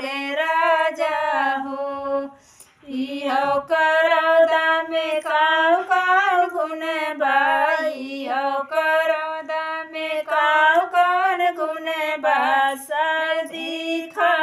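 A woman singing a kaharwa folk dance song (naach geet), the melody going on in sung phrases with a brief pause about two seconds in.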